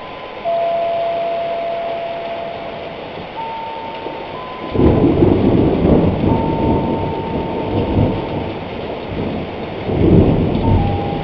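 Thunderstorm: steady rain, with a heavy roll of thunder breaking in just under halfway through and another near the end. Over it, thin steady electronic-sounding tones hop between a few pitches like a signal: the strange sound that was heard only on the recording, not in the room.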